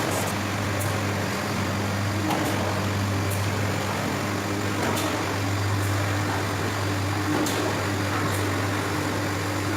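Packaged drinking-water filling machine running with a steady mechanical hum and occasional faint ticks.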